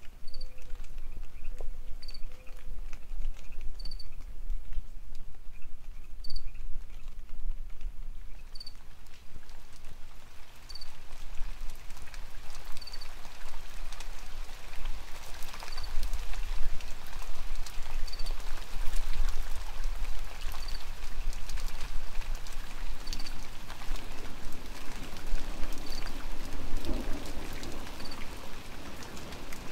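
Steady rain falling through the forest, growing heavier about halfway through. A short high chirp repeats every two seconds or so over it.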